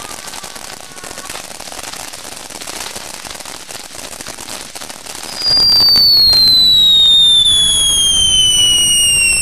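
Ground fountain firework spraying sparks with a crackling hiss. About five and a half seconds in, a much louder shrill whistle starts and slides slowly down in pitch.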